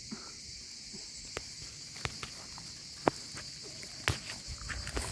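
Steady, high-pitched chirring of summer insects, with scattered sharp clicks and snaps over it.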